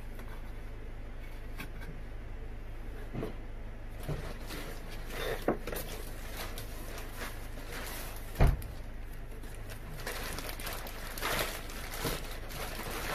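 Steady low hum with a few soft knocks and rustles, and one sharp knock about eight and a half seconds in.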